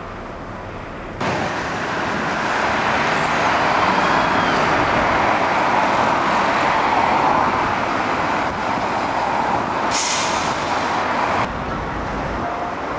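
Road traffic dominated by a coach's engine running at the kerb, with a short hiss of air brakes about ten seconds in. The traffic noise jumps louder about a second in and drops again near the end.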